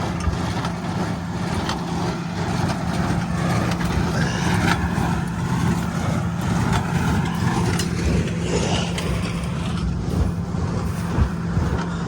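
Farm tractor engine running steadily while pulling a hay baler, a constant low hum.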